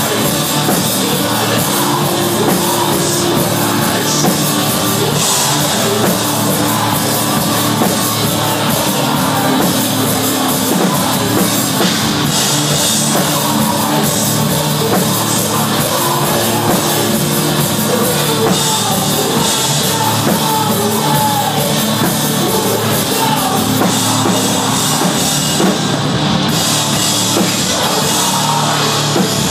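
Loud live rock band playing heavy music: drum kit, distorted guitars and bass in a dense, unbroken wall of sound.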